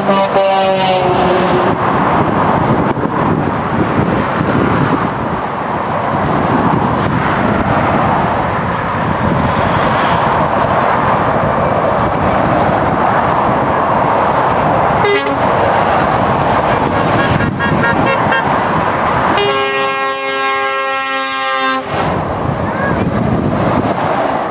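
Convoy of lorries and cars passing on a dual carriageway, engines and tyres running steadily, with trucks' air horns sounding: one horn dies away about a second in, a short toot comes midway, and a long horn blast of about two and a half seconds sounds near the end.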